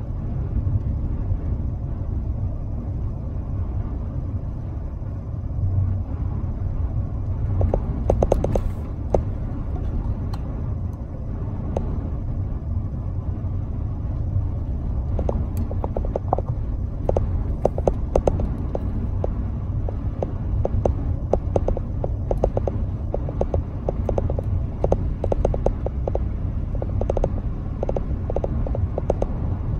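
Steady low rumble of a car driving, heard from inside the cabin. Many short clicks or rattles come in from about eight seconds in and grow more frequent.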